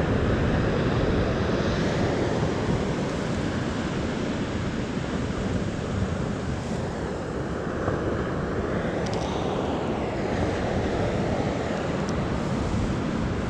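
Surf washing onto a beach, with wind rumbling on the microphone: a steady rushing noise.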